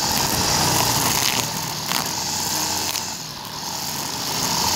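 Honda brush cutter's small engine running at high speed, with a steady buzz and hiss, as the spinning head trims grass; two sharp ticks come about one and two seconds in, and the engine note eases a little about three seconds in.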